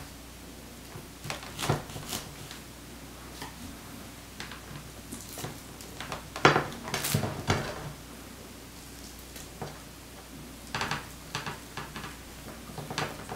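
Irregular knife clicks and short scrapes as a still partly frozen durian is cut open and its husk pried apart by hand. The loudest cluster comes about halfway through, with another run of clicks near the end.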